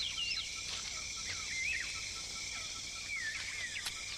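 Tropical rainforest ambience: several birds calling with quick, rising and falling whistled notes over a steady, high insect-like buzz, with an even run of short pips at about four a second.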